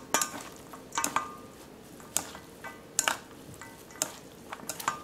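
Chopsticks and a metal spoon clinking against a stainless steel mixing bowl while a salad is tossed: about one sharp clink a second, each ringing briefly.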